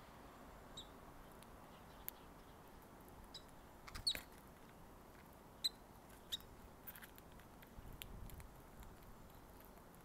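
Faint, scattered short chirps of a Eurasian tree sparrow, about half a dozen of them, the loudest around four seconds in. A few light taps fall among them.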